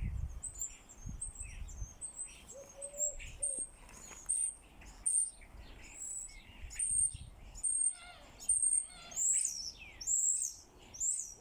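Small birds chirping: a steady run of short, high chirps, about two a second.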